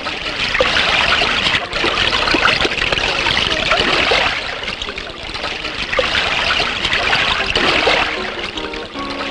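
Film soundtrack of dense, hissing noise like running water, swelling and fading in slow waves every three to four seconds. A few short, low held notes sound faintly near the start and again near the end.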